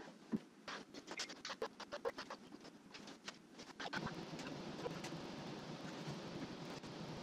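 Plastic squeegee scraping and ticking in quick irregular strokes over epoxy-wet fiberglass cloth on a wooden kayak deck, pressing the cloth down and pulling off excess resin. About four seconds in, a steady even noise takes over and only a few scrapes remain.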